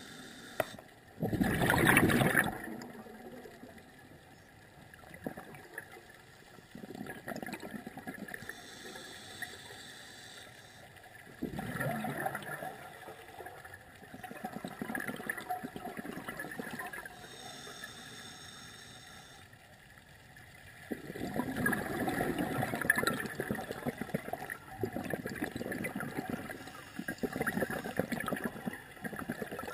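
Scuba diver breathing through a regulator underwater: a few slow breaths, each drawn in with a short hiss from the regulator and let out as a longer gurgling rush of exhaust bubbles.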